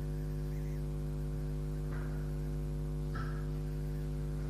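Steady electrical mains hum with a buzz, with two faint brief sounds about two and three seconds in.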